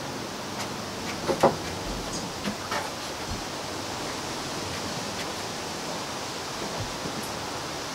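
Steady background hiss with a few light taps and knocks, the sharpest about a second and a half in, from puppies' paws moving about on a wooden deck.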